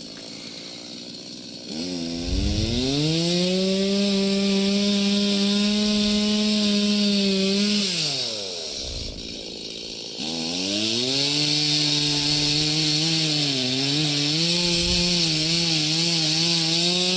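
Gas chainsaw revving up about two seconds in and held at high revs, dropping back to idle for a couple of seconds, then revved up again and held, its pitch dipping and wavering near the end.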